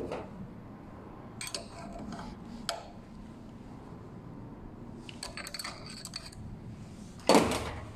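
Light metallic clinks and taps of a hex key and a steel pipe lever against the bolt and blade of an electric pruning shear held in a vise, with one louder metal-on-metal knock near the end.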